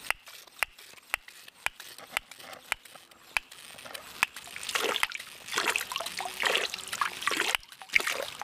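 Katadyn ceramic hand-pump water filter being pumped, with a sharp click about twice a second from the pump strokes. From about halfway, water spurts from the outlet hose in a surge with each stroke as the first half litre is flushed through to clear out ceramic dust.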